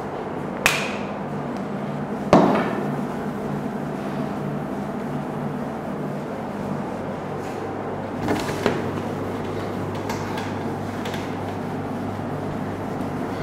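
A whiteboard being wiped clean with a cloth: faint rubbing strokes with a few sharp knocks against the board, the loudest about half a second in, at about two seconds, and a pair near eight seconds, over a steady low hum.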